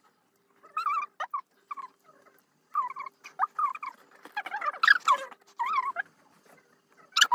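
A small animal's high-pitched calls: a string of short squeaks that bend up and down in pitch over several seconds.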